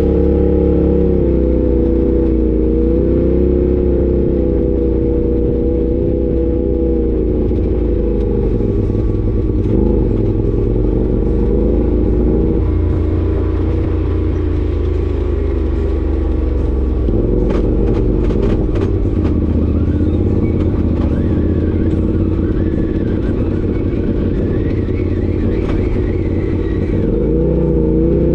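Side-by-side UTV engine running and revving up and down as the machine is driven along, with a short run of sharp clicks and knocks about two-thirds of the way through.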